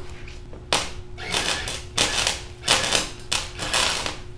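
Electric arc welding on a mini bike's steel frame: the arc crackles and sputters in short bursts of about half a second, starting about three-quarters of a second in and stopping and restarting several times.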